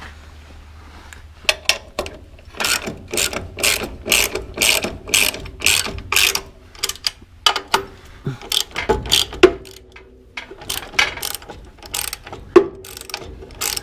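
Socket ratchet wrench clicking in repeated short strokes as bolts are tightened to hold the wood chipper's pump back in place, with a brief pause about ten seconds in.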